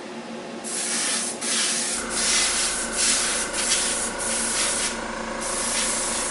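Airbrush spraying in short bursts of hiss, starting and stopping many times as the trigger is worked.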